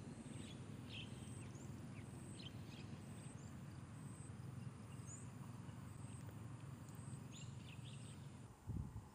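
Outdoor ambience: a steady low rumble of wind on the microphone with a few faint, short bird chirps, and a brief low bump near the end.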